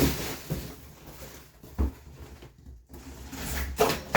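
Rustling handling noise with a few soft knocks as a shipping box is picked up and turned over by hand, with a low rumble of the microphone being handled.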